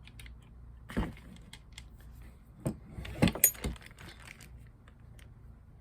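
Clicks and knocks of spray-gun parts being handled and fitted together: one knock about a second in, then a quick cluster of clinks near the middle.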